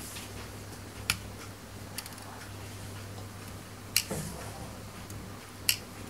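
A few light, sharp plastic clicks, four spread over several seconds, from fingers working loose the cable connectors on an opened laptop's logic board. A low steady hum runs underneath.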